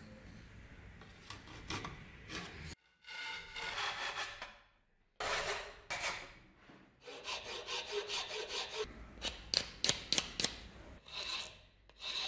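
Hand saw cutting a wooden handle blank clamped in a vise, in short runs of back-and-forth strokes, then a metal file scraping across the wood near the end.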